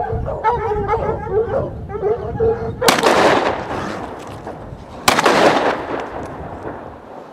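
Hounds baying, then two gunshots about two seconds apart, each trailing off in a long echo.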